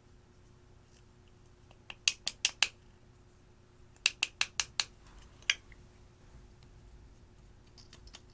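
Two quick runs of sharp clicks, four and then five in a row about a fifth of a second apart, followed by a single click.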